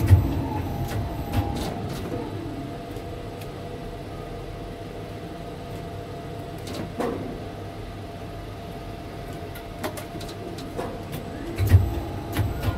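Steady machine hum with a faint whine in a tower crane's cab, broken by scattered clicks and a few low thumps near the start and about a second before the end.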